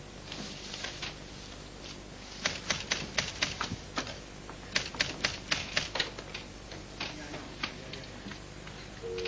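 Typewriter keys struck in two quick bursts of typing, about six or seven keystrokes a second, with a few single taps between.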